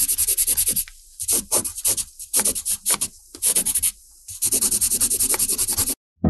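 Rapid, scratchy scribbling strokes of a pen drawing, several strokes a second, in runs broken by short pauses about a second in and around four seconds in, stopping abruptly near the end.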